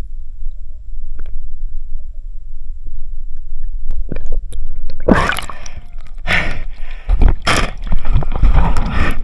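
Muffled low rumble of a camera held underwater in a river, then loud splashing and sloshing from about five seconds in as the camera breaks the surface, in several surges.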